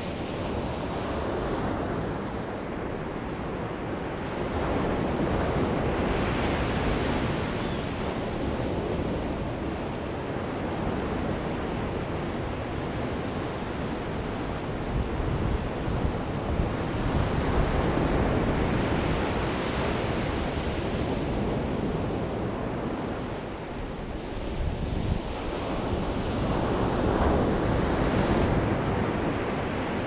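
Sea surf breaking on a sandy, pebbly beach: a continuous wash of waves that swells and eases every several seconds as each set comes in.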